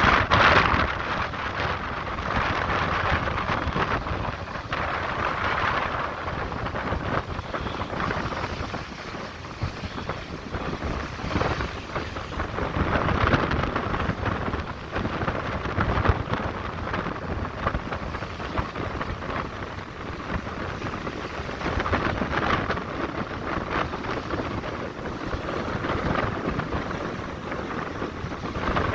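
Wind buffeting the microphone: a steady rushing noise with uneven low rumbling gusts that swell and fade.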